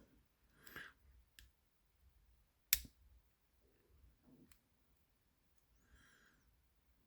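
Faint, scattered clicks and light scraping of a disc detainer pick turning the discs inside a HeHe disc detainer padlock, with one sharper click about two and a half seconds in.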